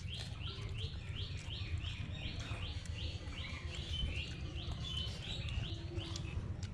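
A bird calling a rapid series of short, evenly spaced high chirps, about three a second, that stops near the end, over a steady low rumble.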